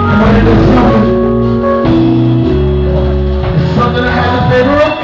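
Live band playing loudly: a man singing into a microphone over guitar and deep, sustained bass notes.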